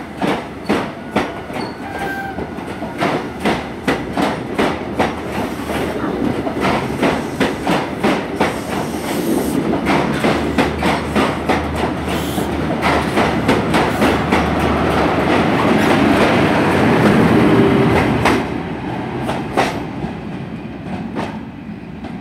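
High Speed Train (InterCity 125) departing: the wheels of the passing coaches click over rail joints in a quickening rhythm. The rumble swells, loudest about three-quarters through as the rear Class 43 power car's diesel engine goes by, then drops away.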